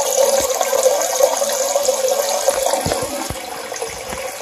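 Water running from a Tushy bidet's nozzle-wash setting and splashing down into the toilet bowl, a steady rush that eases slightly near the end. A few soft low knocks are heard along with it.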